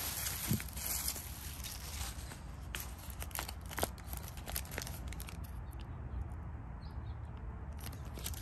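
Bubble wrap crinkling as it is pulled apart by hand, then a small plastic parts bag rustling, with scattered crackles that thin out after about five seconds.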